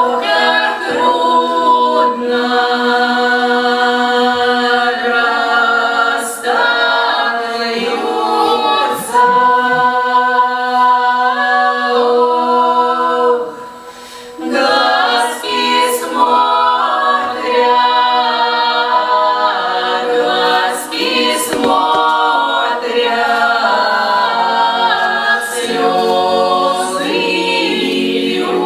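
A Russian folk ensemble singing a cappella in several voices, holding long drawn-out notes. There is a brief break between phrases about halfway through.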